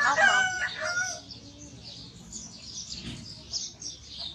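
A rooster crowing once, briefly, right at the start, with small birds chirping faintly behind it.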